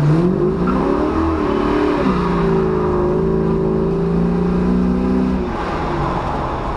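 LQ4 6.0-litre V8 in an LS-swapped Chevy Nova accelerating, heard from inside the car. The revs climb, drop sharply about two seconds in as at an upshift, and hold steady. Near the end the engine note fades into road noise.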